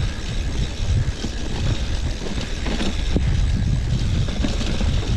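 Wind buffeting the microphone over a steady rumble of riding along, with a couple of short knocks about three seconds in.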